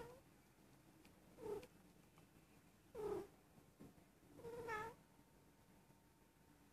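Young female Persian cat meowing: three short meows about a second and a half apart, the last a little longer, after the tail of another at the start. This is the repeated mewing of a normally quiet cat, which the owner suspects means she is in heat.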